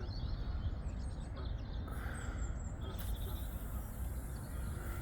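Outdoor ambience: a steady low wind rumble on the microphone with faint, scattered bird chirps.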